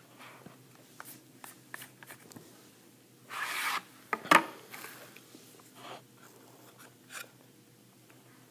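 Hands handling a cardboard coin presentation box: paper and card rubbing with light taps, a short rasping slide about three seconds in, and a sharp click just after.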